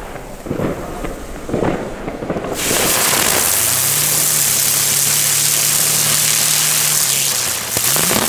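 An Xplode Storm ground spinner firework ignites about two and a half seconds in and spins on paving with a loud spark hiss and a steady low hum. Near the end the hum gives way to a rising whine.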